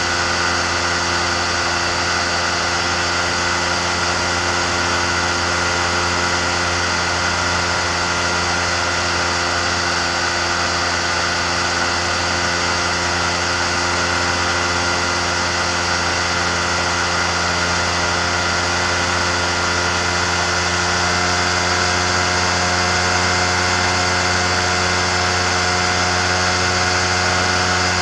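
Engine and pusher propeller of an amphibious microlight trike running steadily in flight, a constant drone with no change in speed.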